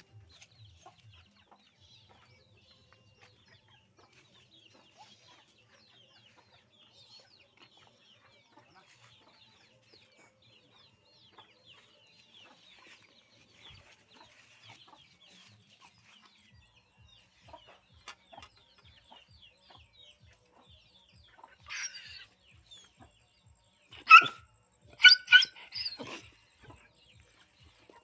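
Animal calls: faint, rapid chirping throughout, then a handful of loud, pitched calls in quick succession about three-quarters of the way through.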